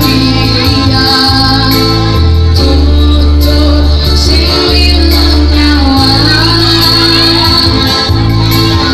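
Live band music through a loud PA: an electronic keyboard and a heavy bass line, with a singer's voice on a microphone over it.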